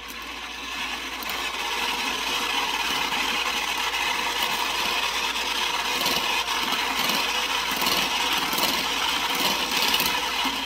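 Electric hand mixer running with its beaters whisking a runny sponge-cake batter of eggs, sugar and oil in a bowl. It comes up to speed over the first second or two, holds steady, and stops near the end.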